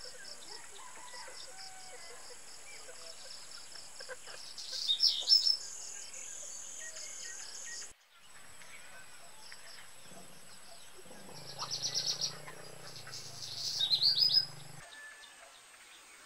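Outdoor countryside ambience: birds chirping, with a steady high-pitched insect drone behind. The loudest bird calls are short bursts of quick chirps about five seconds in and again near fourteen seconds. The sound drops out briefly at a cut about eight seconds in.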